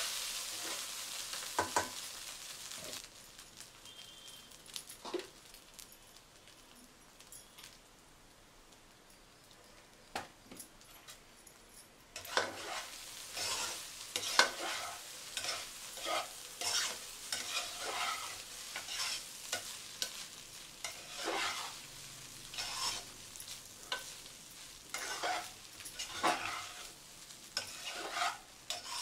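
Steel spatula stirring and scraping fried rice in a nonstick pot over heat, with a light sizzle. A quieter stretch with only a few clicks comes after the opening seconds; then, from about a third of the way in, the spatula scrapes in regular strokes about once a second.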